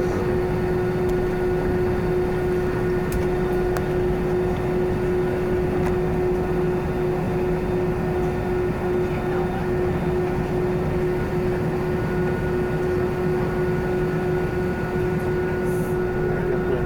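Steady cabin noise of an Airbus A320: an even rumble with a constant hum that holds at one pitch throughout.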